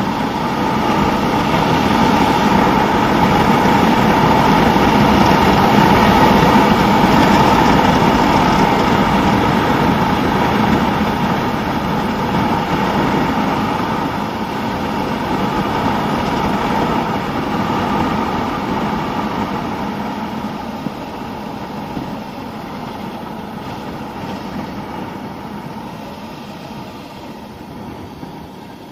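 Suzuki SV650N's V-twin engine running while riding, with wind noise on the microphone. It is loudest a few seconds in and grows steadily quieter over the last third as the bike slows down.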